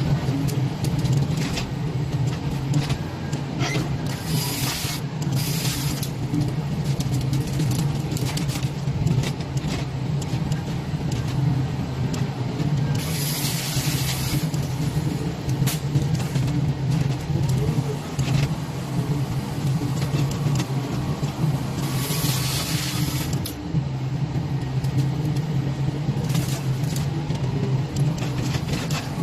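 Diesel engine of a BD wheel excavator with a chainsaw grapple, running steadily while it works, with short bursts of high-pitched noise about four, thirteen and twenty-two seconds in.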